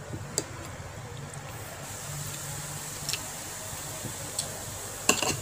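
Spoon and fork tapping and scraping on a ceramic plate a few times, with a louder clatter near the end, over a steady low hum.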